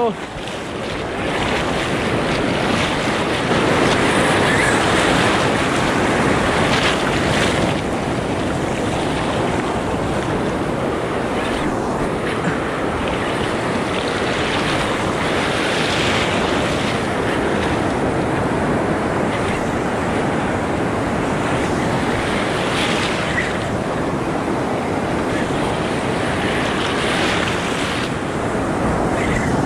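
Ocean surf washing and breaking, with wind buffeting the microphone.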